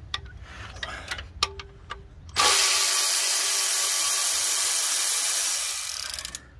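A handheld power tool starts about two and a half seconds in and runs steadily for about four seconds, backing out a bracket bolt on the minivan's shifter cable mount, with a few light tool clicks before it.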